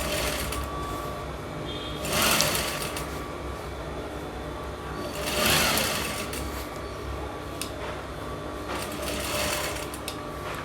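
Sewing machine running steadily while stitching fabric, with three brief louder rushing swells about three to four seconds apart.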